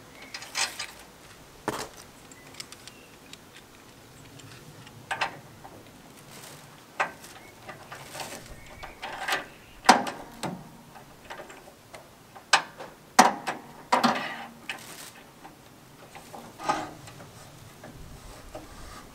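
Scattered metal clicks and light knocks of a long threaded bolt being fitted and screwed by hand into the steel frame of a stone saw, the loudest near the middle of the stretch.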